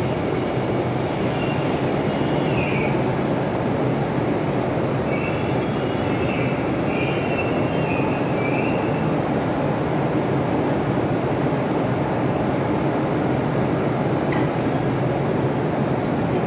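E5 series Shinkansen train rolling slowly alongside the platform as it pulls in to stop, a steady rumble of wheels and running gear. Faint high-pitched brake or wheel squeals come in a couple of seconds in and again around the middle, and a short click comes near the end.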